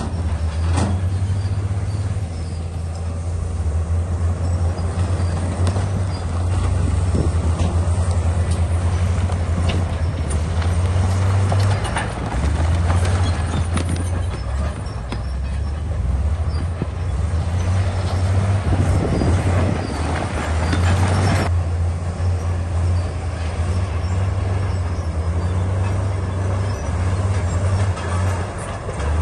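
Crawler bulldozer's diesel engine running steadily under load, with scattered clanks and knocks from the tracks and rock. Near two-thirds of the way in, a louder rushing, grinding noise builds over a few seconds and cuts off suddenly.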